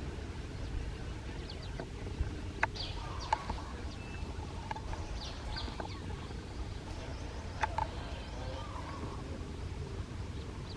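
Short, scattered animal calls with a clucking quality over a steady low outdoor rumble, with a few sharp clicks, the loudest about two and a half and three seconds in and again near eight seconds.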